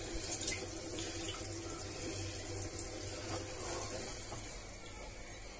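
Water sloshing and lightly splashing as a hand stirs inside a plastic tank of water, pulling apart a clump of submerged water plant.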